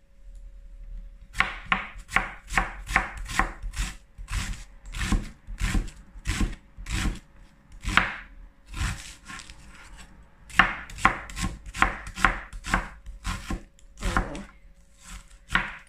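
Chef's knife slicing a large onion on a cutting board: a run of sharp knife strikes on the board, about two or three a second, with a short pause about ten seconds in.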